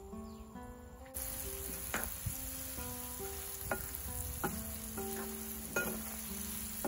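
Bitter gourd slices deep-frying in a wok of hot oil, a steady sizzle that starts about a second in. A metal spatula scrapes and knocks against the wok now and then as it stirs.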